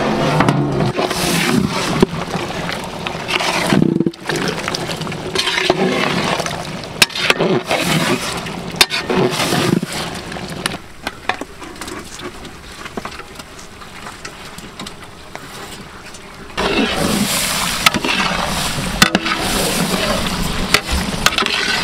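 Long steel ladle stirring quail pieces in thick masala in a large metal cooking pot: wet squelching and sizzling, with the ladle knocking and scraping against the pot. Quieter for a few seconds in the middle, then louder again.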